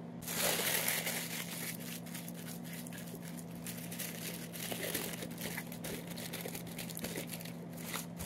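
Paper crinkling and rustling as a sheet is handled, folded and smoothed over a baking sheet, with irregular crackles throughout. A steady low hum runs underneath.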